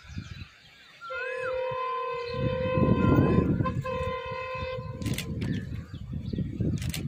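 ALCO WDM3A diesel locomotive horn sounding one long steady blast of about four seconds, starting about a second in, from the approaching train. Birds chirp around it.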